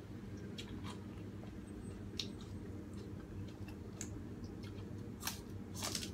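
Light scattered clicks as fresh herbs and a raw green vegetable stem are handled on a tray, then two crisp, crunchy bites into the raw stem near the end.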